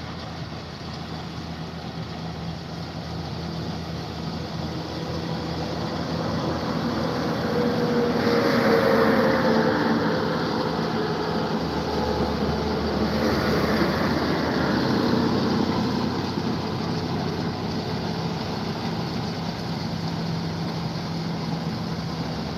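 Rice combine harvester's engine running steadily as it harvests the paddy. About eight and again about thirteen seconds in, two louder swells of engine noise rise and fade, the first falling in pitch.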